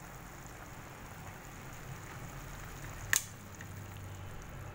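Pot of chicken tinola boiling, a steady bubbling hiss of broth. A single sharp click about three seconds in.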